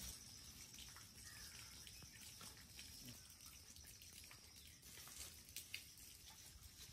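Near silence, with faint scattered ticks and a pair of slightly louder ticks about five and a half seconds in.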